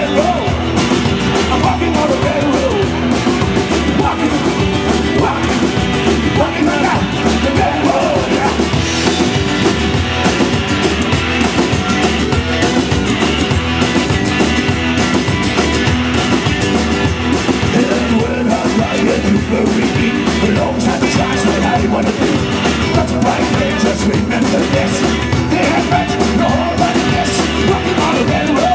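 Live band playing an upbeat rock-and-roll song on upright double bass, acoustic guitar and electric guitar.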